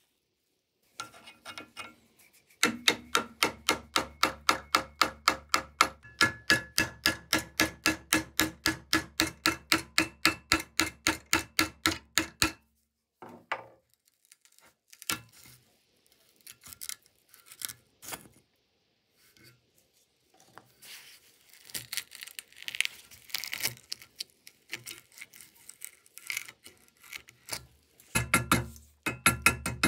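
Rapid, evenly spaced metallic strikes, about four or five a second, each ringing briefly, over a steady low hum. They stop after about twelve seconds, give way to scattered clicks and scraping, and start again near the end.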